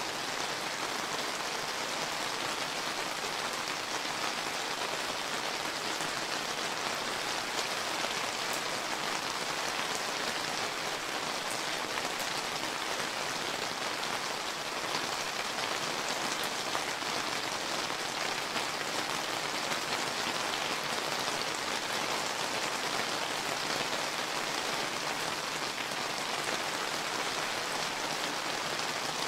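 Steady rain falling on surfaces, an even dense patter of many drops with no let-up.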